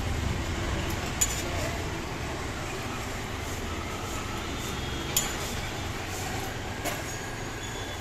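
Metal spatula clinking and scraping on an iron dosa griddle (tawa) as a dosa is cut and rolled: three sharp clinks, about a second, five seconds and seven seconds in, over a steady low background rumble.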